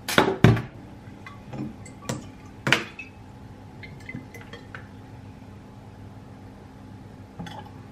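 Glass bottle and plastic oil bottle knocking and clinking as they are handled over a stainless steel sink, loudest at the start, with a few more knocks within the next three seconds. Then a quieter stretch as sunflower oil is poured from the plastic bottle into the glass bottle.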